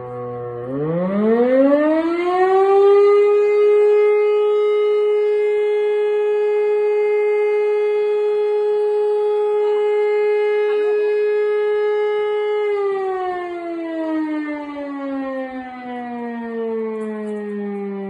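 E57 electromechanical siren sounding the fire alarm signal. It winds up over about two seconds, holds one steady howling tone for about ten seconds, then winds down with a slowly falling pitch.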